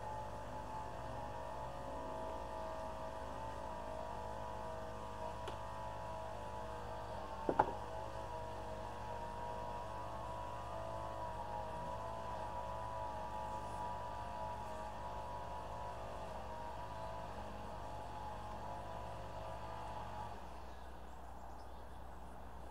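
Steady mechanical hum with several slightly wavering tones, which stops abruptly about 20 seconds in; a single sharp click about seven and a half seconds in.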